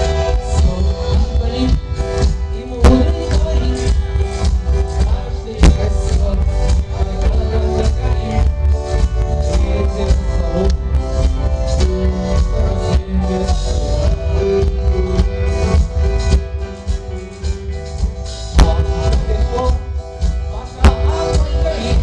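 Live rock band playing an instrumental passage without vocals: electric guitar, bass guitar and keyboard chords over a drum kit, with sharp drum or cymbal accents a few times.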